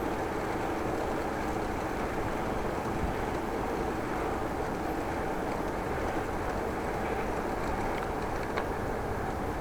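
Steady rumbling noise of riding a bicycle: wind and tyre-on-road noise picked up by the action camera, with a faint click near the end.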